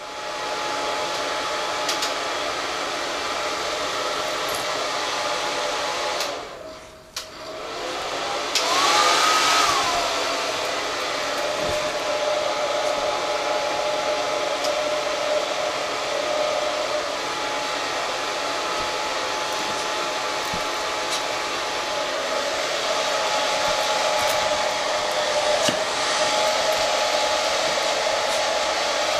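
Hand-held hair dryer running steadily, blowing on a basenji's wet coat to dry it after a bath. It goes quiet briefly about six seconds in, then runs again.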